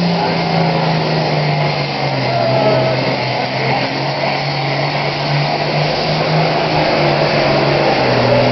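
Turbocharged diesel engine of a Ford pulling tractor straining under the load of the pulling sled. Its note drops over the first second, holds low and steady as it pulls, and rises a little near the end.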